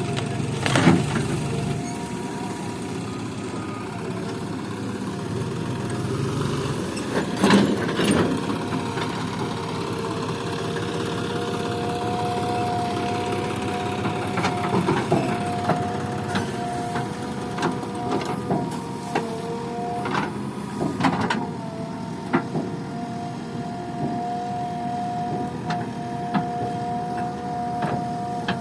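JCB backhoe loader working, its engine running steadily with a whining tone that comes and goes, and sharp metallic knocks about a second in and again near eight seconds.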